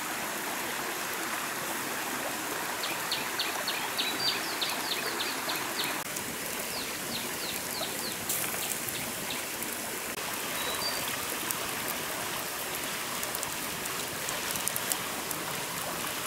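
Steady rushing of a forest stream. A bird calls over it in a quick run of high chirps from about three seconds in, slowing before it stops near eight seconds, and a few sharp ticks come near the middle and near the end.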